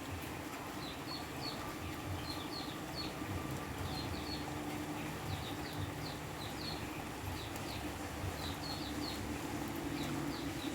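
Steady rainforest rain hissing, with short high chirps from a small bird or other animal repeating in quick groups of two or three about once a second.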